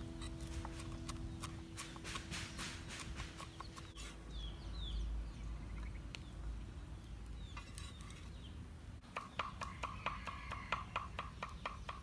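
Cleaver chopping on a round wooden chopping board: runs of quick knocks at the start and again, faster, in the last few seconds. A few short bird chirps come in between.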